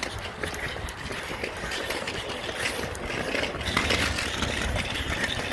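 Kick scooter wheels rolling over rough, cracked asphalt: a steady rough rumble with scattered faint clicks, a little louder in the second half.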